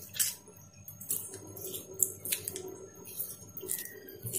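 Homemade cheese curd squeezed and worked by hand in a steel bowl of hot water: soft wet squelches, small splashes and drips coming as irregular quick ticks.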